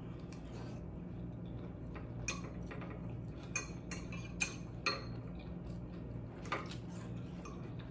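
Metal fork clinking and scraping against a glass bowl of fried cabbage, about half a dozen light clinks in the middle of the stretch, over a low steady hum.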